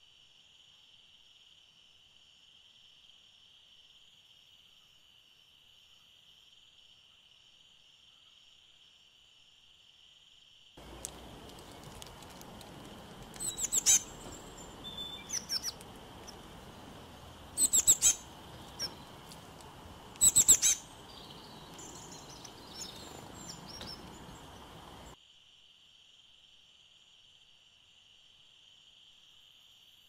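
A steady high-pitched insect drone, like crickets, runs throughout. About eleven seconds in, outdoor background noise comes in, and birds call loudly three times, each a quick run of sharp notes, with softer calls between. The noise and calls stop at about 25 seconds, leaving only the insect drone.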